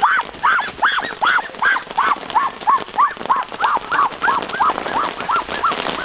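An animal calling over and over in short, arched, rising-then-falling calls, about three or four a second, getting weaker near the end.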